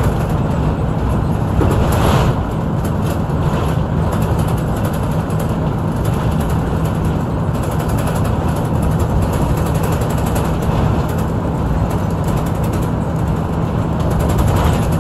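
Steady engine drone and road noise of a route bus heard from inside its cabin while it drives, with a brief louder noise about two seconds in.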